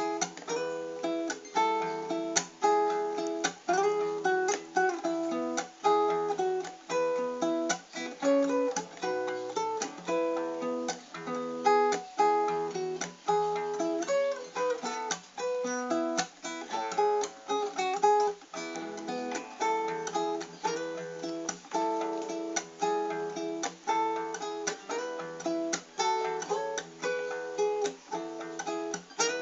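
Acoustic guitar playing an instrumental passage of the song, mixing plucked notes and strummed chords in a steady rhythm.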